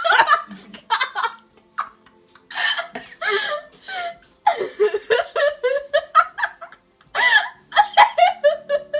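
People laughing and giggling in repeated short bursts, with a brief lull early on and another shortly before the end.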